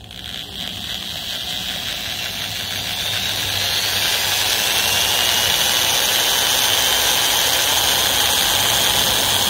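Small electric drill running continuously with a small bit, boring a hole into the end of a wooden dowel. Its motor whine climbs in pitch over the first few seconds, then holds steady.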